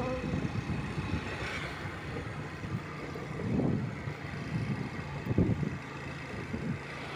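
Motorcycle or scooter engine running while riding, with low buffeting rumble on the microphone. A steady low engine hum becomes clear past the middle.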